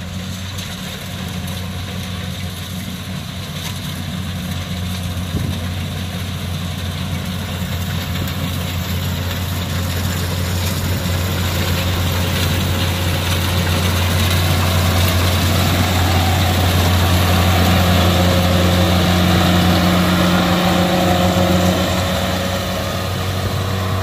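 Kubota DC68G combine harvester's diesel engine running steadily as it cuts rice. The hum grows steadily louder as the machine comes closer, then eases a little near the end.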